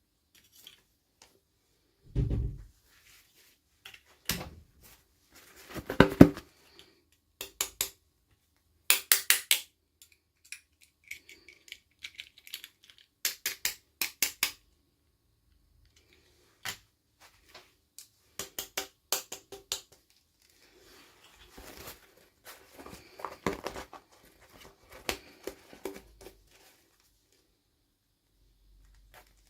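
Irregular plastic clicks, taps and short rustles from hands opening and handling toy packaging and small doll pieces, some coming in quick runs of several clicks.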